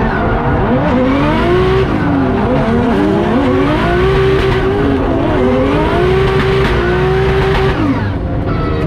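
Nissan S13's turbocharged 1.5JZ inline-six heard from inside the cabin while drifting, its revs rising and falling repeatedly with throttle, then held high for a couple of seconds before dropping off about eight seconds in.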